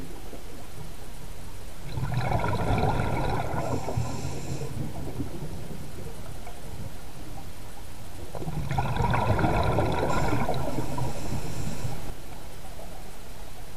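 Scuba diver breathing through a regulator, heard underwater: two breaths about six seconds apart, each a burst of exhaust bubbles lasting about three seconds, over a steady background hiss.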